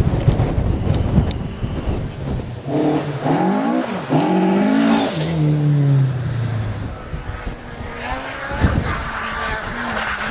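Wind buffets the microphone at first. Then a rally car's engine revs up, shifts, revs up again and falls in pitch as it passes and pulls away, and another engine note builds near the end.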